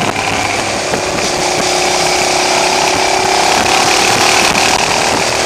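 Motorcycle engine running at a steady cruising speed with wind noise, picked up by a camera mounted on the bike. The recording level was set too high, so the sound is harsh and overloaded.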